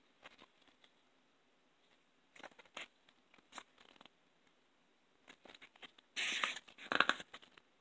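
Paper and card being handled: light scattered clicks and scrapes, then two louder rustles about six and seven seconds in, as of sheets or cards being moved or turned.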